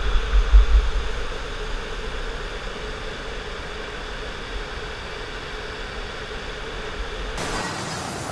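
Steady rushing of a wide waterfall cascade, with wind buffeting the microphone during the first second.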